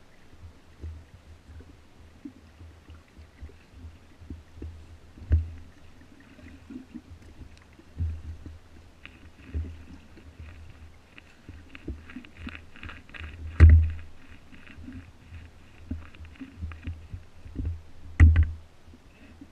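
Inflatable dinghy being rowed on calm water: irregular low thumps and sharp knocks from the oars working in the rowlocks, the loudest two in the second half, with a rapid patter of small clicks and splashes in the middle.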